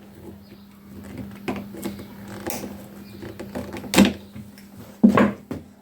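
Light clicks and knocks of tools being handled, with a sharp snap about four seconds in and another about a second later, typical of side cutters snipping a nylon cable tie. A steady low hum runs underneath.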